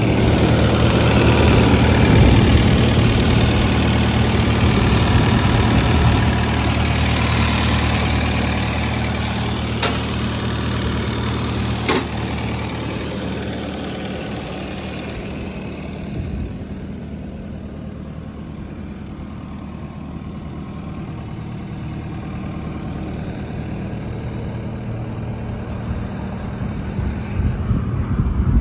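Case TV370 compact track loader's diesel engine idling steadily, loudest in the first half and fainter from about halfway on. Two sharp clicks come in the middle.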